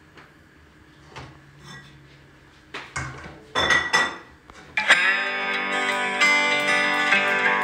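A wooden spoon and frying pan knocking and clattering on a gas hob, a few quiet knocks at first and louder clatter from about three seconds in. At about five seconds guitar music starts and plays steadily on, the loudest sound.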